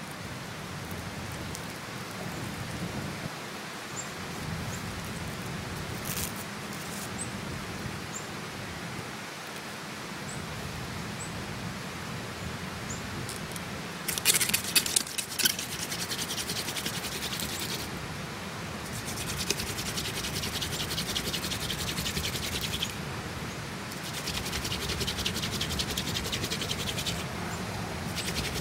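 Burning tinder bundle crackling with a soft hiss and scattered small pops. About halfway, a hand drill takes over: a Canada goldenrod spindle twirled between the palms, its tip grinding in the wooden hearth board with a fast, scratchy rubbing, in runs of about four seconds with short pauses, working up to an ember.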